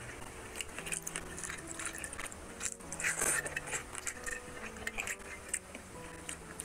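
Close-miked mukbang eating sounds: a man chewing and smacking on mutton curry and rice eaten with his hand, with wet squishing and small clicks as his fingers work the rice and meat. The loudest bite-and-chew comes a little after three seconds in.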